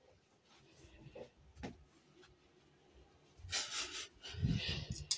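Handling noises: faint knocks and rustling, with two louder bursts of rustling and a soft bump in the second half.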